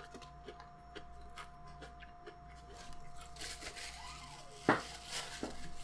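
Faint chewing clicks, then a nose blown into a paper napkin about three and a half seconds in, ending in one short louder puff.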